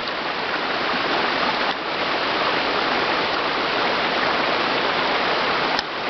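Waterfall on a mountain brook: a steady rush of falling and flowing water, growing a little louder over the first second.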